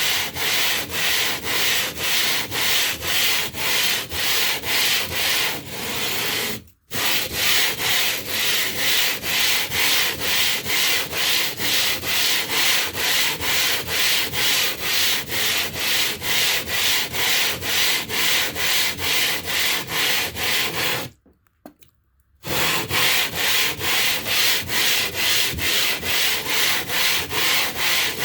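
A limestone block being lapped flat on a sheet of glass with wet coarse grinding powder: a gritty scraping rasp in even back-and-forth strokes, about two a second. It stops briefly near 7 seconds in, and again for about a second around 21 seconds.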